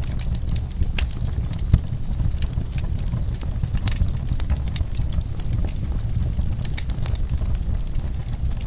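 Fire in a fireplace crackling: a steady low rumble of flames with frequent sharp pops and snaps, one louder pop about two seconds in.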